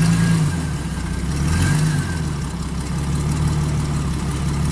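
An off-road vehicle's engine running at low revs, with a couple of brief rises in pitch as the throttle is eased on and off.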